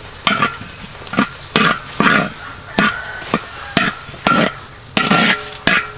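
Metal spatula scraping around a wok as it stirs minced garlic frying in sauce, about two strokes a second, some with a short metallic ring. A light sizzle runs underneath.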